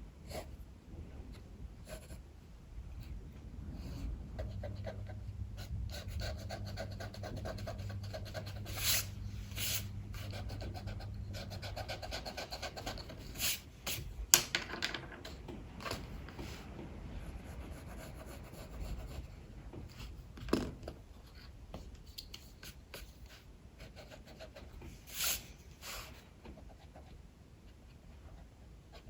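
Pencil sketching on paper: scattered scratchy strokes over a low background rumble of wind. A low steady hum comes in about four seconds in and stops about twelve seconds in.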